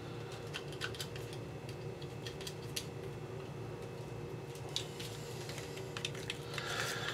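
Light, irregular clicks and taps of small objects being handled, over a steady low hum, with a short rustle near the end.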